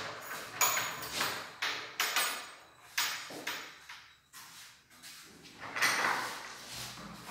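Wooden sliding wardrobe doors being slid along their tracks: a run of short rolling slides and knocks, fainter in the middle, with a louder one about six seconds in.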